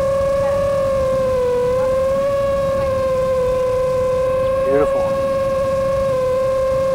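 Motors and propellers of an iFlight Chimera7 Pro 7-inch long-range FPV quadcopter in flight, giving a steady high whine whose pitch wavers slightly with throttle and dips briefly about a second and a half in.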